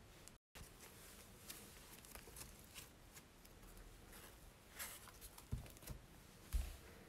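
Soft pink slime being kneaded and folded by hand: faint sticky crackles and small clicks, with a few soft thumps against the table in the second half, the loudest near the end.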